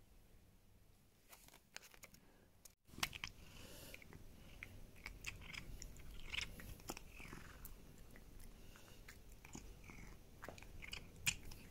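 Cat chewing a dried duck fillet treat: faint, irregular clicky crunching and biting, starting about three seconds in after a short quiet spell.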